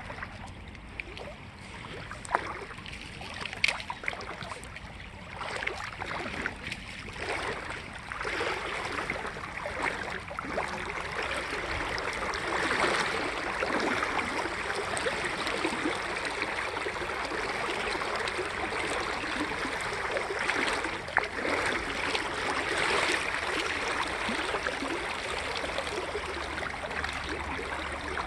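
A creek's strong current rushing, a steady sound of running water that grows louder about eight seconds in. A few sharp knocks stand out in the first several seconds.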